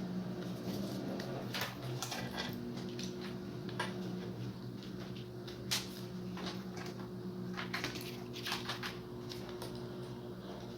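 Scattered light clicks and taps of small parts being handled, over a steady low electrical hum.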